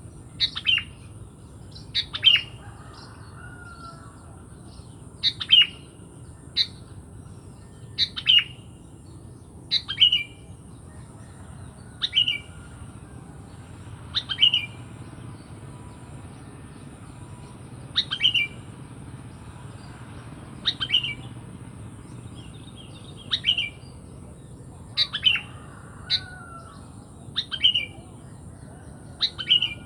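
Sooty-headed bulbul (kutilang) giving short, sharp calls about every two seconds, each a quick note falling in pitch, some in close pairs.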